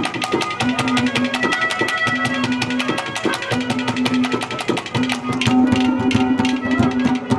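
Live folk-music instrumental interlude: fast, dense hand-drum strokes under a melody of held notes that come and go.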